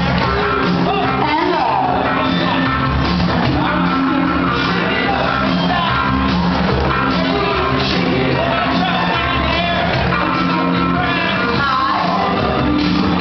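Loud song with a sung melody over a steady beat, playing for a group dance workout and echoing in a gymnasium.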